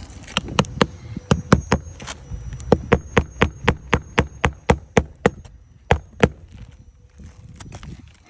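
Hammer driving nails into roof shingles: about twenty sharp blows at three to four a second, in several runs with short pauses, stopping about six seconds in.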